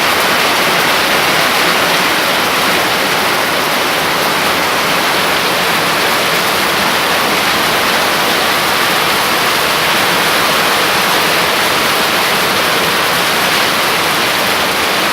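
Heavy downpour of rain, a loud steady rush of water with no let-up.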